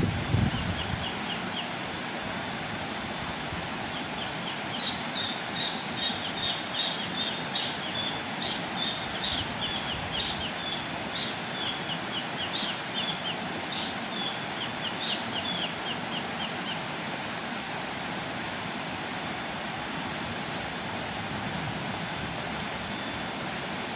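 Steady outdoor background noise with a dull thump right at the start. From about five seconds in until about seventeen seconds in, a bird gives a rapid series of short, high chirps.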